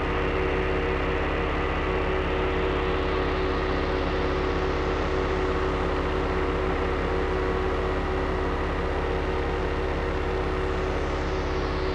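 Layered analog synthesizers playing a dense, steady drone of many held tones over a low bass. Near the end a high, hissing filter sweep falls in pitch.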